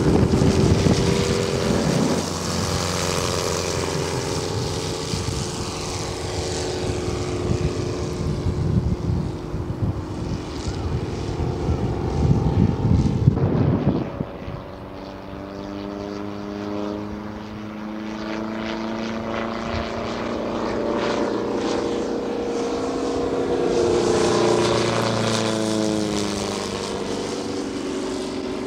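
The engine and propeller of a large-scale radio-controlled Stearman-style biplane. For about the first half it runs loud and rough at high power, then the sound drops suddenly. After that it is steadier, with its pitch rising and falling as the plane flies around.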